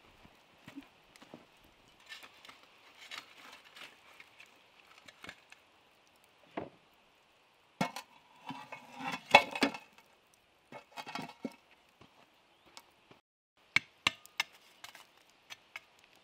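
Burning embers and charred chunks of wood being scooped with a metal shovel and tipped onto a pot lid over a campfire: irregular scraping, knocks and clinks, busiest about halfway through and again near the end.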